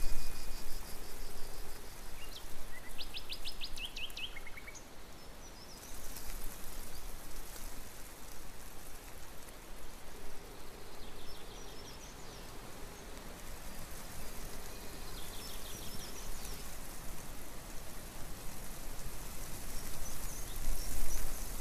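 Outdoor ambience: a steady hiss with a low rumble, and small birds chirping now and then, including a quick run of chirps about three seconds in.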